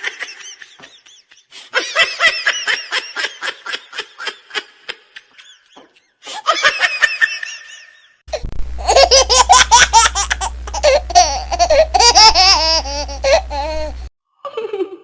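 A run of separate laughter clips, one after another: quick rhythmic giggling, then a longer, louder burst of high-pitched laughter with a steady low hum under it from about 8 s to 14 s, then a short giggle near the end.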